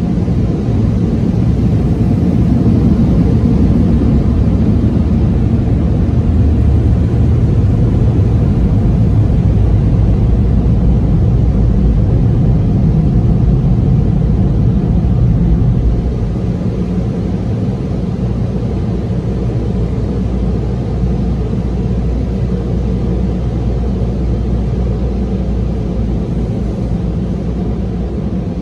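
Steady, loud roar of automatic tunnel car wash machinery heard from inside the car's cabin. It becomes quieter a little past halfway through as the car leaves the tunnel.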